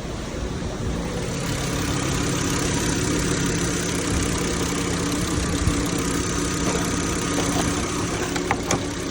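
Volkswagen Jetta engine idling with a steady hum that grows a little louder about a second in, and a couple of faint clicks near the end. This is the noise that the owner links to running the air conditioning.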